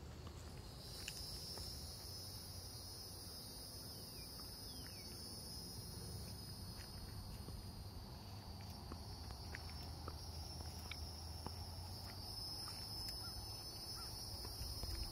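Steady high-pitched chorus of insects trilling in the woods, coming in about a second in and holding, with a few faint short chirps over it.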